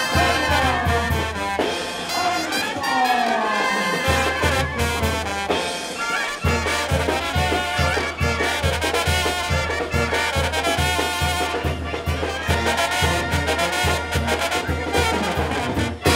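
Banda brass band playing, with trumpets and trombones carrying the tune over a steady low beat of about three pulses a second.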